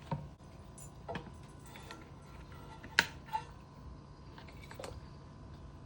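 A few scattered metallic clicks and knocks of hands and tools working on a small pressure-washer engine while setting up a spark check, the sharpest about three seconds in, over a faint steady hum.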